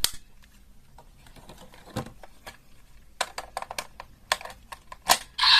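Scattered clicks and taps of hard plastic as a DX Brave Dragon Wonder Ride Book toy is handled and fitted into the Seiken Swordriver toy belt, with a quick run of clicks around three to four seconds in and a sharp snap just after five. Right at the end the belt's electronic audio starts playing.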